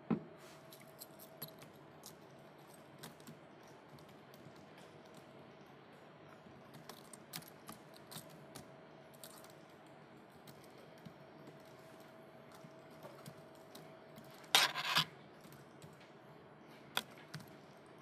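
Typing on a laptop keyboard: scattered single keystrokes, with a louder clatter of keys about three quarters of the way through.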